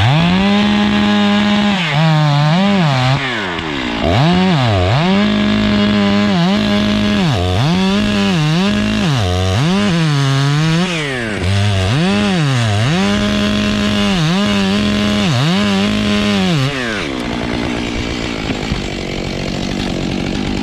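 Gas chainsaw running at full throttle through oak, its engine pitch sagging again and again as the chain loads up in the cut and then picking back up. About 17 s in it drops to a quieter, steady running tone.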